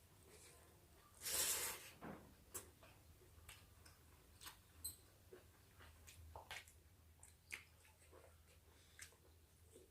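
Quiet eating sounds: scattered soft clicks and smacks of chewing, with a short breathy rush about a second and a half in.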